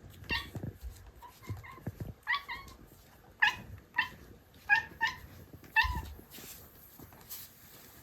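Munchkin cat giving a string of about eight short, high meows in quick succession, begging for food.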